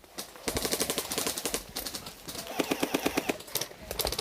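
Airsoft electric guns firing full-auto: two long bursts of rapid, evenly spaced shots, then a few single shots near the end.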